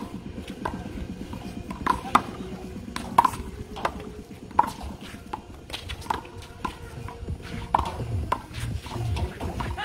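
Rubber handball slapped by bare hands and rebounding off a concrete wall and court in a one-wall handball rally: a string of sharp smacks about every half second to a second.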